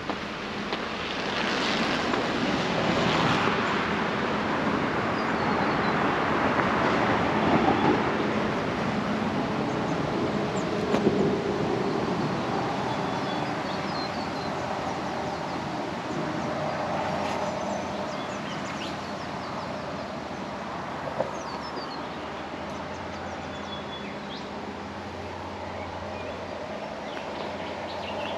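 A road vehicle passing, its tyre and engine noise swelling over the first couple of seconds, dropping in pitch as it goes by, then slowly fading away. Small birds chirp faintly throughout.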